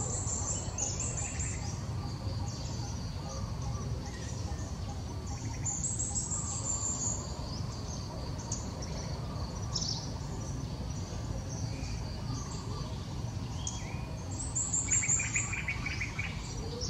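Small birds chirping in quick runs of high, rapid notes. The runs come about three times, with a lower pulsed trill near the end, over a steady low background rumble.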